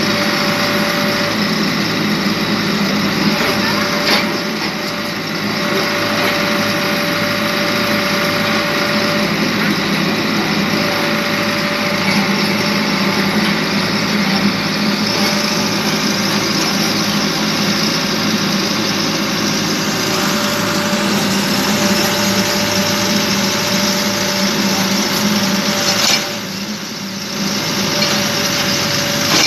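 Wheeled excavator's diesel engine running under load while the boom and bucket dig, with a thin steady tone that comes and goes over the engine noise. The level dips briefly twice, a few seconds in and near the end.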